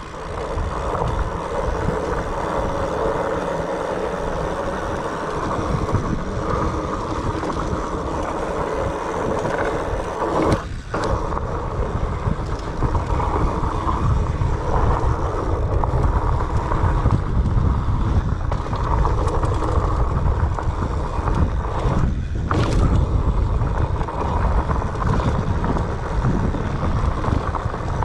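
Mountain bike rolling fast down a dirt singletrack: steady rumble and rattle of the tyres and bike over the rough trail, mixed with wind rushing over the action-camera microphone. The noise briefly drops twice.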